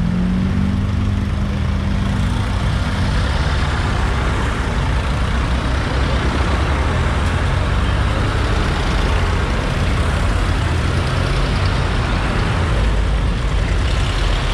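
Vintage farm tractors driving past one after another at close range, their engines running with a steady low note.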